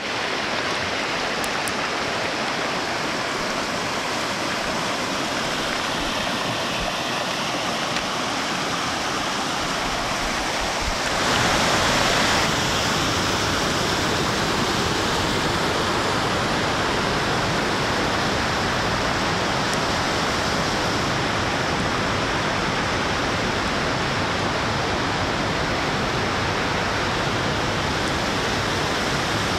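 Stream water rushing over rocks in small cascades, a steady rush. It grows louder about eleven seconds in and stays fuller after that.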